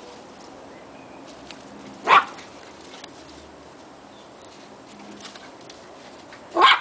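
Puppy barking twice during play: one short, sharp bark about two seconds in and another near the end.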